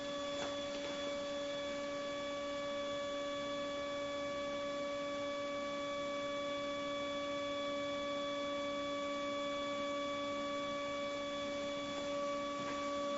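Dental porcelain furnace's motorised tray lift lowering the firing tray: a steady electric-motor whine of several fixed tones, unchanging in pitch.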